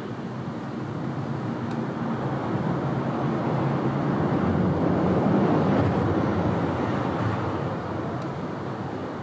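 A vehicle passing by: a steady traffic noise that swells to a peak around the middle and fades again.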